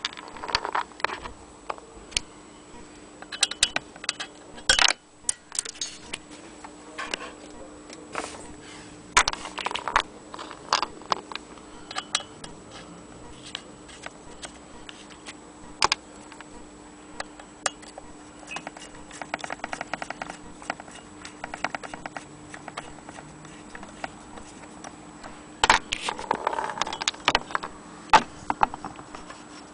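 Clicks, taps and light rattles of metal parts of an antique Willcox & Gibbs hand-crank sewing machine being handled, with a quick run of even ticks a little past the middle. A faint steady hum sits underneath.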